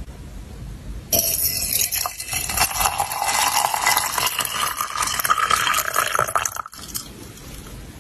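Water poured in a steady stream into a glass pitcher of loose tea leaves, the pitch of the splashing rising as the pitcher fills. The pour starts about a second in and stops abruptly about a second before the end.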